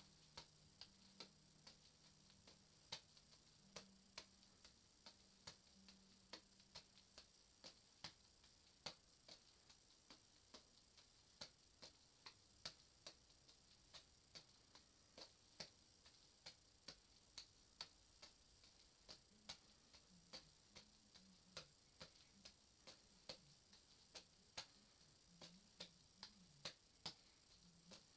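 Juggling balls landing in the hands during a three-ball windmill pattern: faint, regular soft clicks of the catches, about two a second.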